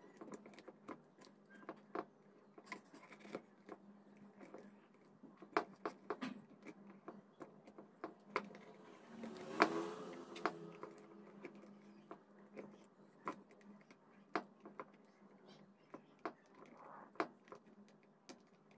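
A small metal tool scraping and picking glue coating off the back of a washing machine's main circuit board: irregular small scrapes and clicks, busiest about ten seconds in, over a faint steady low hum.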